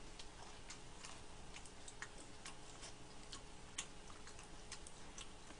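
Faint mouth sounds of people chewing bungeoppang: soft, irregular clicks and smacks, about two or three a second, over a faint steady hum.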